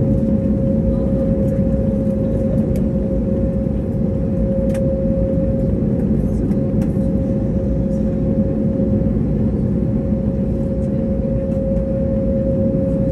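Steady cabin noise of an Airbus A320neo waiting near the gate with its Pratt & Whitney geared turbofan engines at idle: a low rumble with a steady mid-pitched hum, and a few faint clicks.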